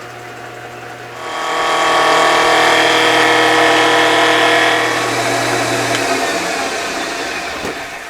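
CNC wood lathe run for a test cut. A click and a low motor hum come first. About a second in, a much louder whining, rushing noise joins, holds for several seconds, and fades away over the last couple of seconds.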